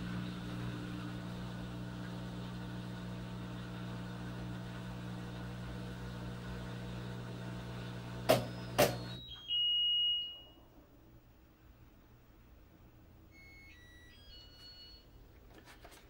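Electrolux LFE14 front-loading washer in its final spin, its motor running with a steady hum. The hum stops about eight seconds in with two clicks, and a single high beep follows, signalling that the spin has finished. A few faint electronic tones come near the end.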